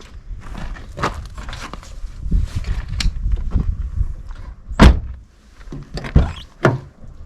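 A hammer striking a wooden block held against a car door to bend the dented door metal back into shape, in a handful of irregular thuds, the hardest one about halfway through.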